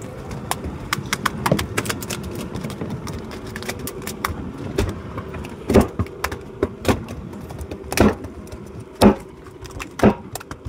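Wooden mallet clubbing a freshly caught fish on a wooden boat deck to stun it. There are lighter scattered knocks in the first half, then five heavy thuds about a second apart.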